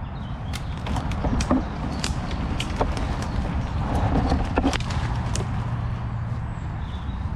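Footsteps through woodland undergrowth, with twigs and brush snapping and crackling at irregular intervals, over a steady low rumble of road traffic.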